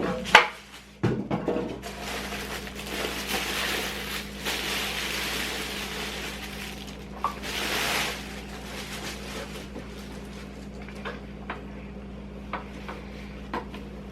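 Packing material rustling and scraping as the new induction cooktop is handled out of its box, followed by a few light clicks and knocks, over a steady low hum.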